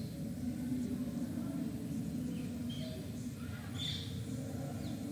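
Faint steady background hum of a live stadium broadcast feed, with a few brief faint high chirps about three and four seconds in.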